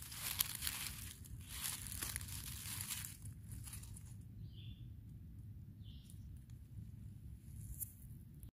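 Rustling and crackling of dry forest-floor litter and vegetation, loudest in several surges over the first three seconds, then fainter.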